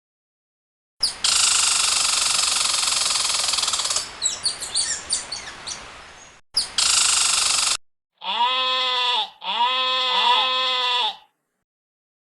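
Sheep bleating: two long, wavering bleats near the end. Before them comes a loud stretch of hissing noise, broken by short chirps that fade away.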